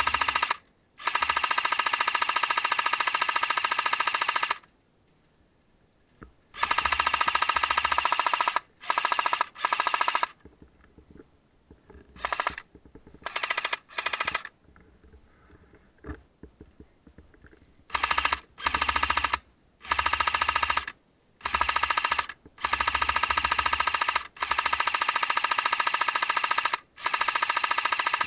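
Airsoft gun firing on full auto, a rapid stream of shots in repeated bursts. Some bursts are short, under a second, and others run on for three seconds or more, with brief pauses between them.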